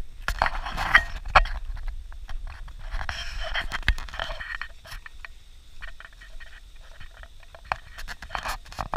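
Footsteps crunching on dry leaves and twigs along a woodland trail, with brush and clothing rustling; the crunches and scrapes come irregularly, a few close together near the start and again near the end.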